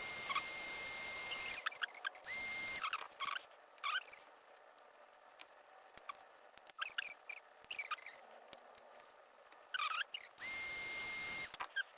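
Heat gun blowing with a steady hiss and high whine, switched off after about a second and a half, on again briefly, and on again near the end. In between, a sharp blade scraping out shards of a cracked phone camera lens cover, giving short high squeaks and small clicks.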